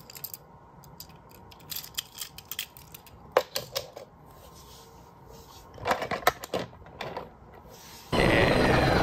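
Scattered light clicks and clatter of small toy cars being handled, in short clusters with quiet gaps between. Near the end, loud music starts abruptly.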